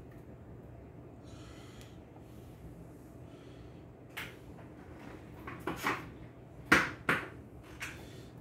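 A series of hard knocks and clunks in the second half, the loudest about two-thirds of the way through, as groceries are set onto and moved about on wooden pantry shelves.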